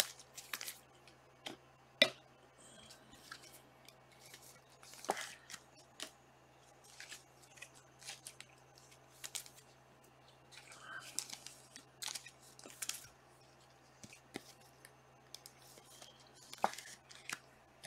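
Trading cards and their plastic packaging being handled: scattered sharp clicks and snaps with short rustles, the loudest snap about two seconds in.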